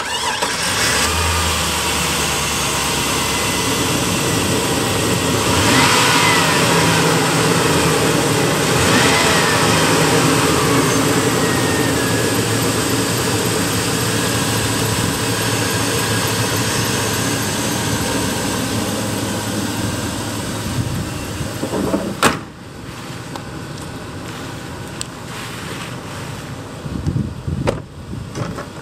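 A 2002 Chevrolet Silverado's 4.8-litre Vortec V8 runs steadily with the hood open, and its pitch rises and falls twice in brief revs. About three-quarters of the way through a sharp knock sounds, and after it the sound is quieter.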